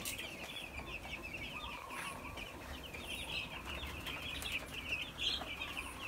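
A flock of young chicks peeping continuously: a dense chatter of many short, high chirps overlapping one another.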